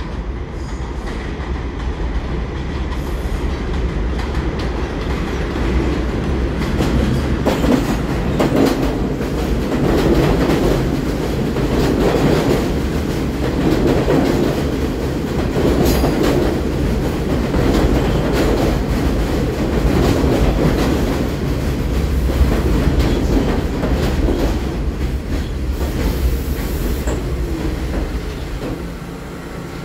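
R46 subway train pulling into an elevated station: a rumble that grows louder as it approaches, then a rhythmic clatter of steel wheels over rail joints as the cars roll along the platform, dying down as the train comes to a stop near the end.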